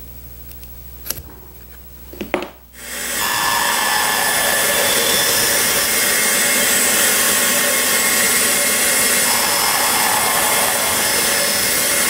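Two light taps, then a small benchtop band saw starts about three seconds in and runs steadily while a cardboard tab is held against its band to feather the tab's edge.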